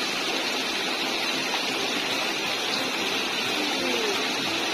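Shallow stream flowing, a steady rush of water.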